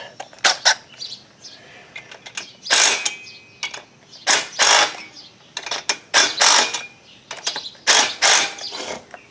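Ratchet wrench clicking in short, irregular strokes on the engine's head bolts, most of them in quick pairs.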